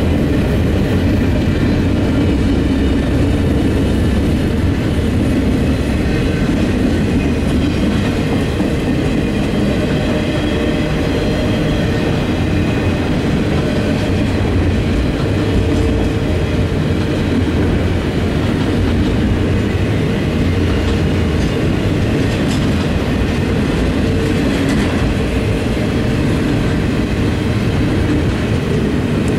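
Norfolk Southern double-stack intermodal freight train rolling past at speed: a steady, loud rumble and rattle of steel wheels on the rails and container well cars, with faint high-pitched wheel squeal over it.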